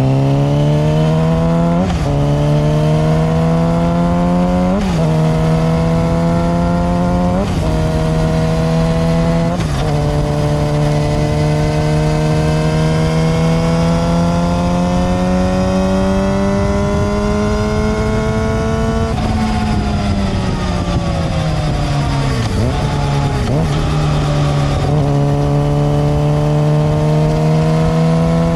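Yamaha YZF-R6's inline-four engine pulling hard through the gears, with four quick upshifts in the first ten seconds. It then holds speed with the revs slowly rising, drops off about two-thirds of the way through, and picks up again. Only a hint of drivetrain whine comes from the chain and the rubber-dampened front sprocket, which keeps the chain quieter than a solid metal sprocket.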